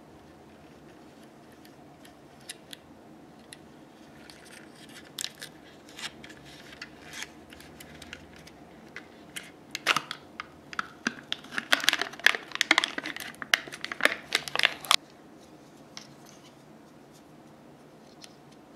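Foil lid being peeled off a plastic pudding cup: a dense run of crinkling, tearing crackles from about ten seconds in, stopping suddenly about five seconds later. Before it come scattered small clicks and rustles of the plastic cup being handled.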